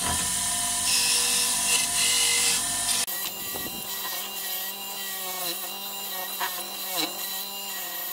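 Small 370-watt bench grinder with a wire brush wheel running, its steady motor hum under a hissing scratch as an aluminium moped cylinder head is pressed against the brush to scour off crust and corrosion. The motor's pitch sags briefly a couple of times when the part is pushed in harder.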